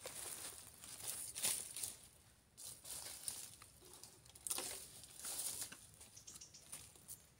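Dry leaves and sandy ground rustling and scratching in several short bursts as a baby monkey squirms about on its back.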